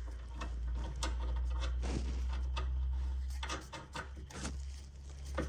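Hand tools and new metal hardware clicking and clattering as a sway bar link's lock nuts are fitted, a scatter of short irregular knocks over a low steady rumble.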